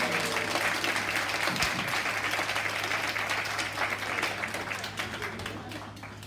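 Small audience applauding, dense clapping that tapers off near the end.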